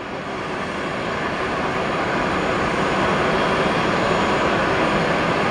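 Jet aircraft engine noise on an airport apron: a steady rushing hum with a faint whine, growing slowly louder.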